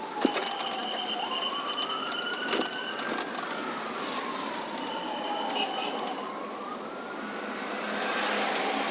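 Whelen electronic siren sounding a slow wail, its pitch sweeping up and down about every five seconds. A short steady high tone sits over it twice.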